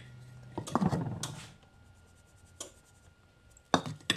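Soft rustling and handling as flour is added onto a ball of bread dough on a wooden board, followed by a quiet stretch and two sharp knocks near the end.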